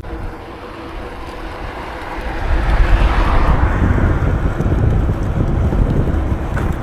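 Wind buffeting the microphone while riding a bicycle, a heavy low rushing that swells about two and a half seconds in and cuts off abruptly at the end.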